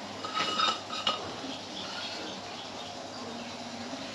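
A few light metal clinks of tools or parts being handled, in roughly the first second, over a faint steady hum.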